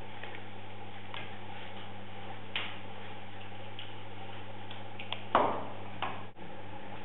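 Clay being thrown on a potter's wheel: a steady low hum under a few short, wet clicks and knocks of hands and tools on the clay, the loudest about five seconds in.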